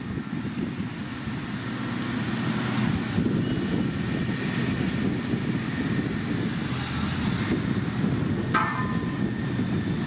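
Heavy diesel road-construction machine running steadily, with a rumbling engine note and some wind on the microphone. A brief high squeal comes about eight and a half seconds in.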